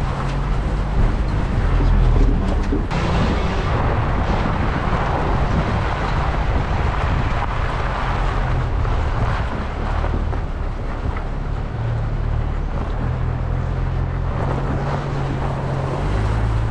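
GMC Canyon pickup truck driving on an off-road trail: steady low engine drone with tyre and wind noise that swells and eases.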